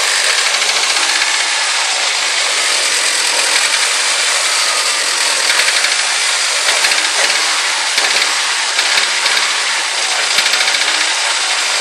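A 2004 Mazdaspeed Miata's turbocharged 1.8-litre four-cylinder running cold, with a fast, steady ticking-knocking from the engine that the owner suspects is a failed rod bearing; the knock almost disappears once the engine warms.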